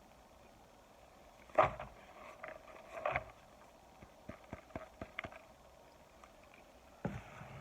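Crunching and cracking of dry microwaved cornstarch chunks: a loud crunch about a second and a half in, another about three seconds in, a run of small crackles, and another crunch near the end.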